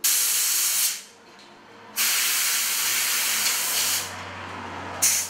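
Compressed air blowing in bursts from an air-compressor blow gun, dusting out a plasma TV's circuit boards: a hiss of about a second, a longer one of about two seconds, and a short blast at the end. A low steady hum comes in near the end.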